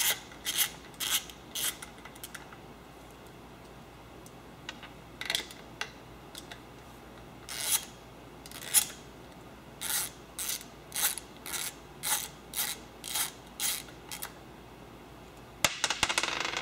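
Hand socket ratchet clicking in short back-and-forth strokes, about two a second, running nuts down on the oil sump studs of an AeroVee engine, in several runs with a pause of a few seconds after the first. Near the end comes a brief rustling clatter.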